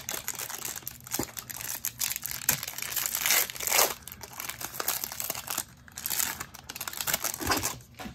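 Foil wrapper of a trading-card pack crinkling and tearing as it is opened by hand, with an irregular crackle that stops just before the end.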